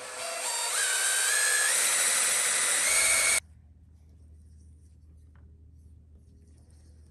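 Makita cordless drill boring the tap-drill hole for an M8x1.25 thread into the side of the milling machine's metal table, the bit squealing in tones that step upward in pitch. It runs for about three and a half seconds, then stops suddenly.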